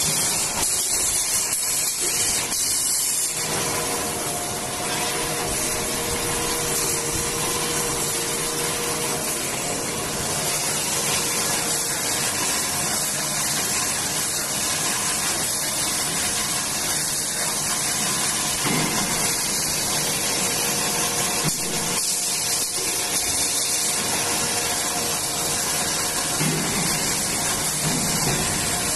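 Automatic toilet-paper-roll bandsaw cutting machine running: a steady, loud, hissing whir of the band blade and its motors.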